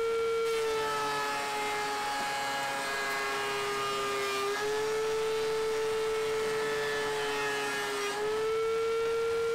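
DeWalt two-speed benchtop thickness planer running with a steady high whine that drops in pitch under load as boards feed through the cutterhead, with the rough rasp of the knives cutting. It happens twice: from about half a second in to about four and a half seconds, then straight on again until about eight seconds. The whine briefly rises back to its free-running pitch in between, and again near the end.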